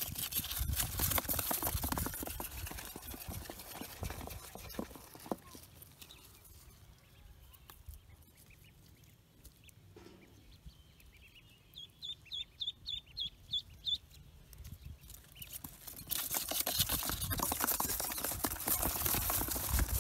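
Rustling and scraping of hands handling Pekin ducklings in a cardboard box and against dry earth. Midway comes a quick run of about eight short, high peeps from a duckling. The handling noise is loudest at the start and near the end.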